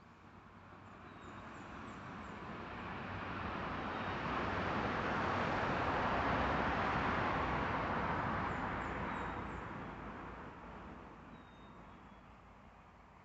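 A road vehicle passing: a smooth rush of tyre and engine noise that swells slowly to a peak about halfway through and fades away again over roughly twelve seconds. Faint bird chirps sound above it.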